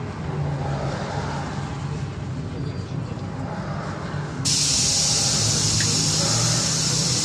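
Inside a moving Scania OmniLink city bus: a steady low engine drone with road noise. About four and a half seconds in, a loud, even hiss cuts in abruptly and keeps going.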